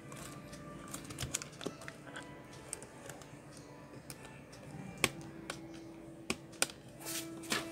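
Irregular clicking and tapping of a Lenovo S10 netbook's keyboard as its keys are pressed down and its top edge is pushed and pried to free it from the case. Several sharper clicks come in the last few seconds.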